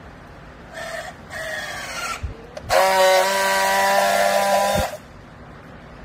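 Battery-powered handheld strapping tool working a yellow plastic strap around a pressed clothing bale: two short motor whirs as it tensions the strap, then a louder steady whine for about two seconds as it seals, which cuts off with a click.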